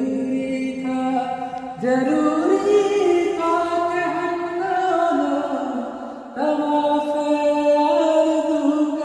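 A man singing a slow Hindi song in long, held notes that slide gently in pitch. New phrases start about two seconds in and again a little past six seconds.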